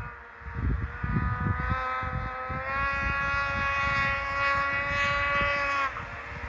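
Snowmobile engine running hard at high revs, a steady whining note that climbs a step about three seconds in and then drops off sharply near six seconds as the throttle is let off, with wind buffeting the microphone throughout.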